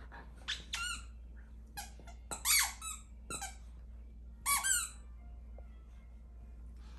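Squeaker in a yellow plush duck toy squeaking in short clusters as a German Shepherd bites and chews it; the squeaks stop about five seconds in.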